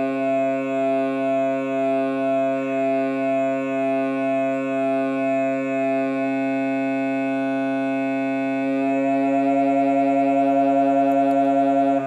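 Two overlapping steady electronic tones with many overtones, played through a small speaker driving a balloon membrane. The sound swells and fades about twice a second as the tones beat, evens out about six seconds in, then turns louder with a fast flutter about nine seconds in as the first frequency is raised.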